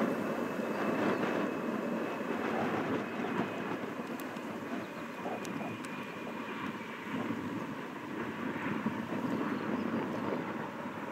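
Jet engine noise from a landing Boeing 737-400's CFM56-3 turbofans: a steady rushing sound with a faint high whine that sags slightly in pitch and fades over the first several seconds.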